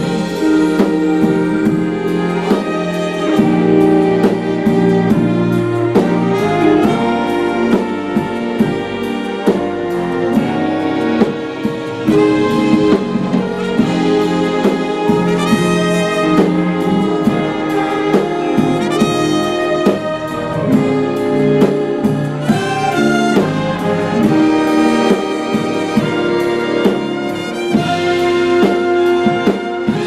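A string section of violins with trumpet and saxophone playing an arrangement together, held chords and moving melodic lines.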